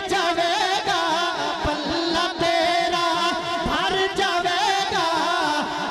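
A man singing a Punjabi naat into a microphone through a sound system, holding long, wavering notes with no spoken words.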